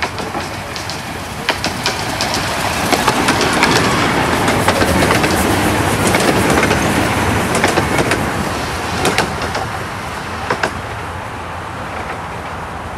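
0-4-2T 15-inch gauge steam locomotive and its coaches running past. It gets louder as it nears, is loudest for a few seconds in the middle, then fades as the coaches go away. Sharp clicks from the wheels and track come through the running noise.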